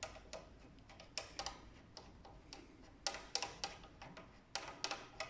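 Ratchet and socket clicking in short bursts on the 14 mm front brake caliper bolts of a Honda CBR1000RR as they are loosened and undone, with a few sharp metal clicks in each burst.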